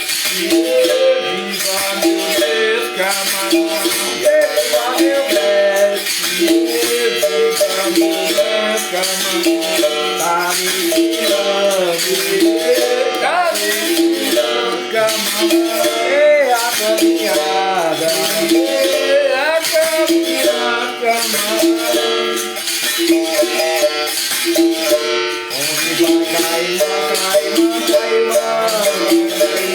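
Bamboo berimbaus playing a rhythmic capoeira toque, the twanging pitched notes of the struck bow string mixed with the rattle of caxixi shakers.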